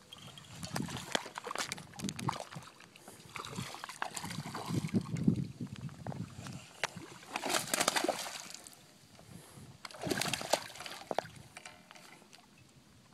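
A hooked bass splashing and sloshing in shallow water at a rocky shore while it is brought in, in irregular bursts of splashing mixed with clicks and clatter, quieter near the end.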